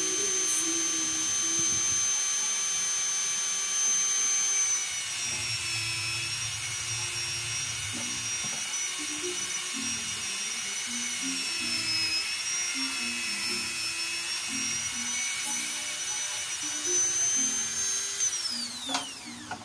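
Small high-speed electric rotary grinder whining steadily as it grinds the worn valve-contact tip of a Nissan TD27 diesel rocker arm, dressing damage left by worn valve stems so the valve clearance can be set correctly. Its pitch sags slightly under load in the middle, and near the end it is switched off and winds down with a falling whine.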